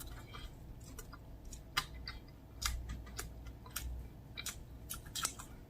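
Close-miked chewing of barbecue ribs, with irregular small wet clicks and smacks from the mouth.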